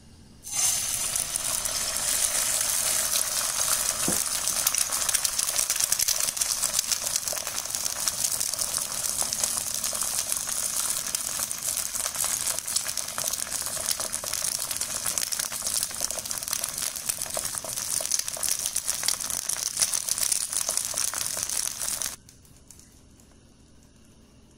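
Beaten egg sizzling and crackling in hot oil in a frying pan, starting as it hits the pan about half a second in and cutting off suddenly near the end.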